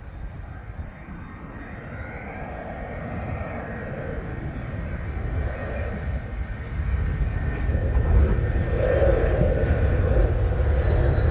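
Mitsubishi F-2 fighter jet on its landing approach with the gear down. Its jet engine grows steadily louder as it comes closer, a high thin whine over a broad rushing noise, and the whine drops slightly in pitch twice.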